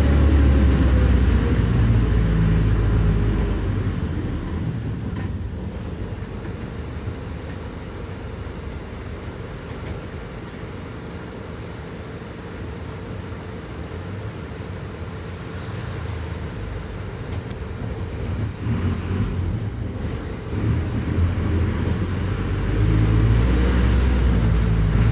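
Diesel engine of a Mercedes-Benz OF 1519 bus heard on board, running under load at first, then easing off to a quieter, lower hum for most of the stretch. Near the end it pulls hard again, louder, with a whine rising and falling in pitch.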